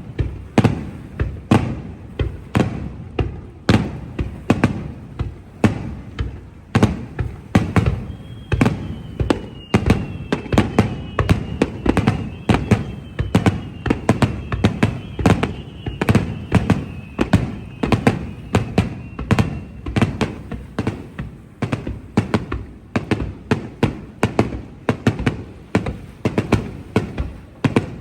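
Fireworks shells bursting in rapid, continuous succession, about two to three sharp bangs a second with a low rumble. A thin high whistle-like tone drifts slightly downward through the middle of the barrage.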